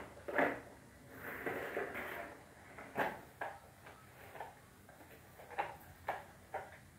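Spin mop worked in its plastic bucket, a brief swishing whirr, then the mop pushed across a tiled floor with a string of short knocks and swishes.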